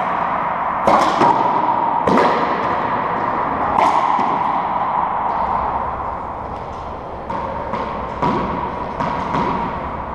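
Racquetball ball smacks echoing in an enclosed court: four sharp hits in the first four seconds, then a run of softer bounces and taps.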